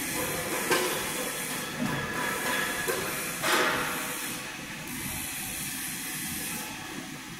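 Hydraulic CNC press brake running under a bend, a steady hiss with a brief louder surge about three and a half seconds in.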